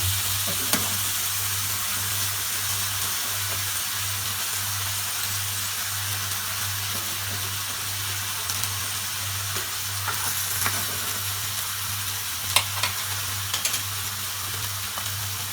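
Basa fish fillets sizzling steadily in hot oil in a frying pan, over a low steady hum, with a few light clicks in the second half.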